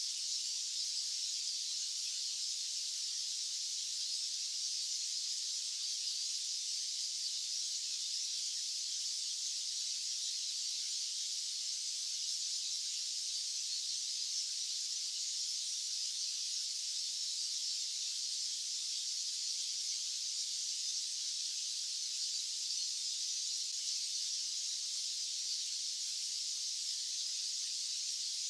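Steady, unchanging high-pitched hiss of white noise, with nothing in the low end.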